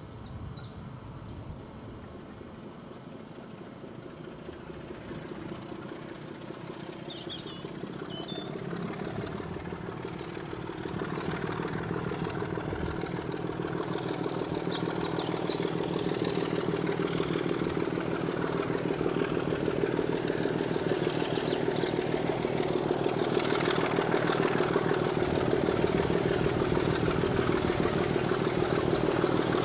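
Diesel locomotive engine running, with a steady low throb that gets steadily louder.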